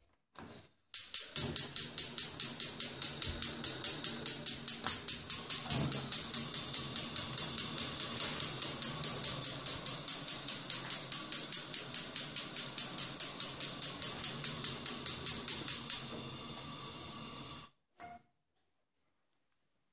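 Spark igniter of a Bosch gas cooker hob clicking rapidly and evenly, about four clicks a second, for some fifteen seconds while the burner knob is held in. The clicking then stops, and a short steady hiss follows before it cuts off suddenly.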